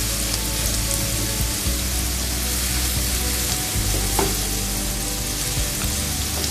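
Chopped onions sizzling steadily as they fry in oil in a nonstick pan, stirred now and then with a spatula. They are being cooked until a little past light brown.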